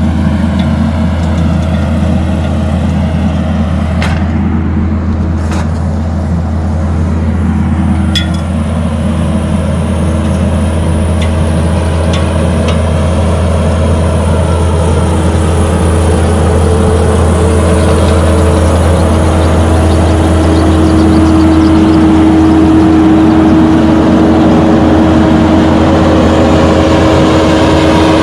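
Kubota skid steer's diesel engine running steadily under load while driving a Harley rake over topsoil, with a steady hydraulic whine. The engine note grows louder in the last third, and there are a few sharp clicks in the first eight seconds.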